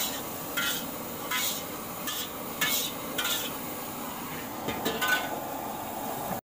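Fried rice cooking in a steel wok over a high-flame burner: sharp metal clanks from the wok and spatula about every half second to second, over a steady frying sizzle and burner hiss.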